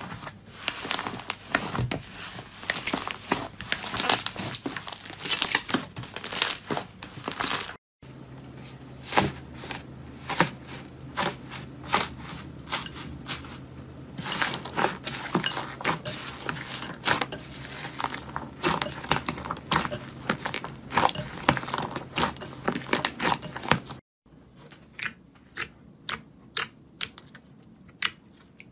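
Slime being squeezed and pressed by hand, making dense crackling, popping clicks. The sound cuts off and changes twice, and near the end the clicks become sparser, a few a second.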